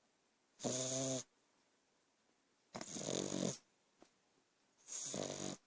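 A sleeping pet snoring: three snores about two seconds apart, each a pitched, breathy sound lasting half a second to a second.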